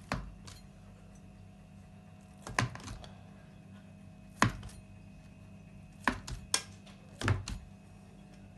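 Knife cutting through syrup-soaked basbousa in a round aluminium pan, its blade knocking against the pan in about nine short, sharp clicks at irregular intervals.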